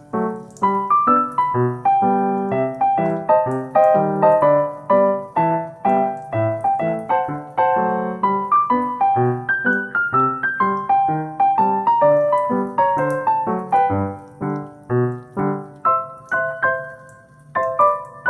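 Background piano music: a gentle melody of single struck notes and chords, played at a steady, unhurried pace.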